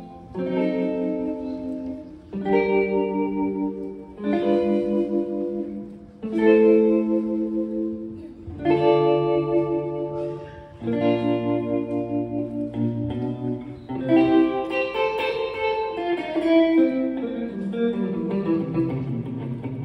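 Electric guitar playing slow chords, a new chord struck about every two seconds and left to ring out. In the second half the playing gets busier, with more notes between the chords and a bass line stepping downward near the end.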